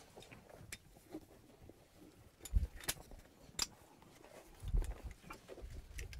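Faint scattered clicks and knocks with a couple of low thumps, from a flat irrigation hose and its aluminium cam-lock coupling being handled and dragged on dry ground.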